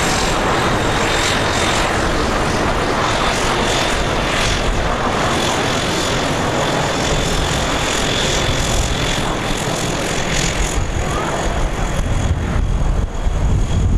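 Bell Boeing MV-22B Osprey tiltrotor flying in helicopter mode: steady loud rotor and turboshaft engine noise with a thin high turbine whine over it. The low rotor beat grows heavier over the last few seconds as the aircraft comes closer.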